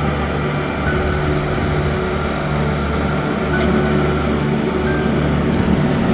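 Kato mobile crane's diesel engine running steadily, a constant low drone.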